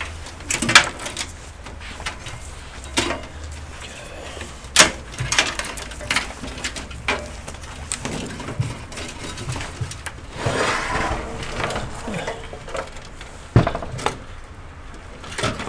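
Hands working with cables and connectors in a desktop PC case, making scattered plastic and metal clicks and knocks. About ten seconds in there is a rustling, sliding sound lasting a second or two.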